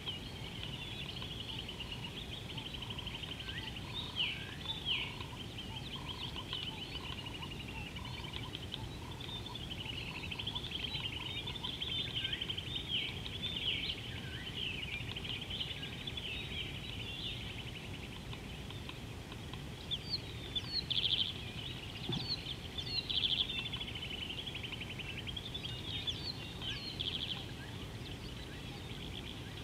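Birds chirping and trilling in a continuous chorus, with a cluster of louder chirps about two-thirds of the way through, over a low steady outdoor rumble.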